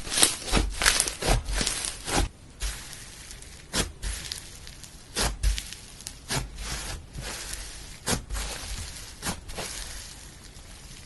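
Slime being squeezed and poked by hand, giving irregular sticky clicks and pops, a quick cluster in the first two seconds and then scattered single pops.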